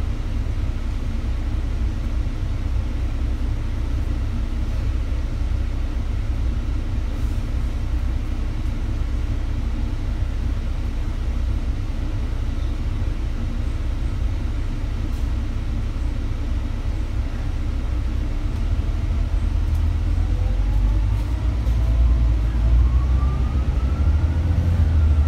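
Double-decker bus engine idling with a steady low rumble, heard from the upper deck. About twenty seconds in it grows louder and a rising whine comes in as the bus pulls away.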